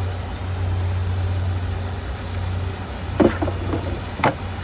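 Boat motor idling with a steady low hum. Two short knocks sound about three and four seconds in.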